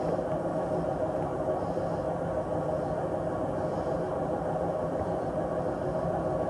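Samsung WW80J5555FWEU front-loading washing machine running with its drum turning, giving a steady rumble and hum: the sound the owners take for knackered drum bearings.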